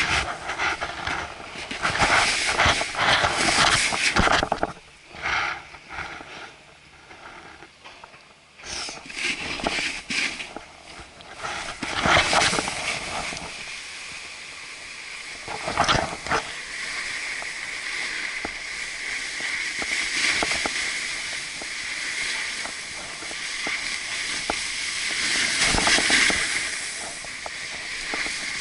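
Snowboard sliding and carving down packed snow: a steady scraping hiss from about halfway through, with a sharp knock a few seconds into the run. Before that, irregular scuffs and knocks as the board is set in motion.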